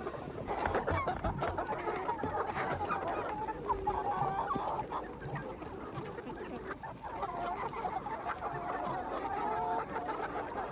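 A flock of chickens clucking, many calls overlapping.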